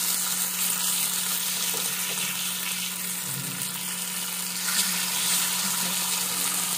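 Fish pieces sizzling steadily in shallow oil on a flat iron tawa, with a metal spatula moving over the pan to turn them.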